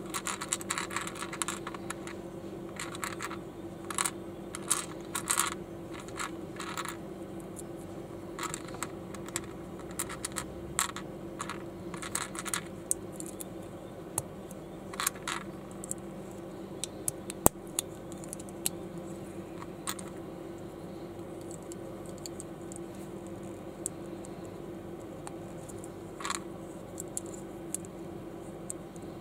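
Small hard plastic building-brick pieces clicking and rattling as they are handled. The clicks come in quick clusters through roughly the first half, then only now and then, over a steady low hum.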